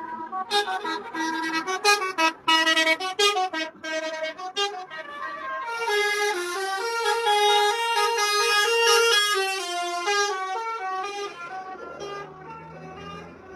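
Tour bus basuri (telolet) musical horn playing a tune: a quick string of short, choppy notes, then a louder stretch of longer held notes stepping through a melody, fading near the end.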